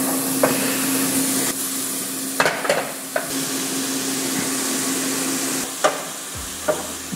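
Diced bacon and onion sizzling and frying in a stainless-steel pan at medium heat, just added to the pan. A spoon knocks and scrapes against the pan a few times as they are stirred.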